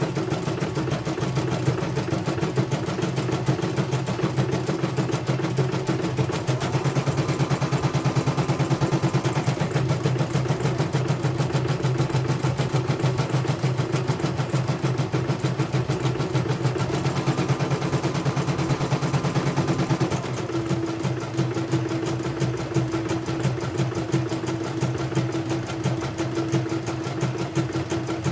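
Computerized home embroidery machine (Elyana) running on its own, stitching out a test design after a repair. Its needle keeps a steady, rapid stitching rhythm, and its tone shifts about two-thirds of the way through.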